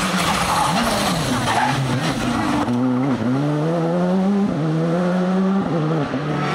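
Škoda Fabia R5 rally car's turbocharged four-cylinder engine on a stage: a rush of tyre and engine noise through a bend, then the revs climb and drop back with three quick upshifts as the car accelerates away.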